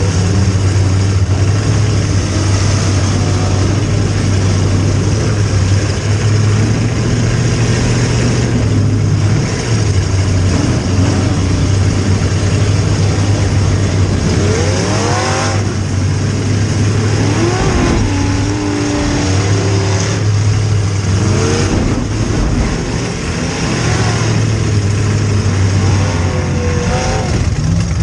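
Demolition derby car's V8 engine running loud and close, heard from inside the stripped cabin, its pitch rising and falling with revving several times in the second half.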